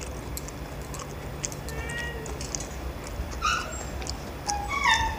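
Cats meowing for food, drawn by the smell of the meat: a couple of short meows, then a longer one near the end.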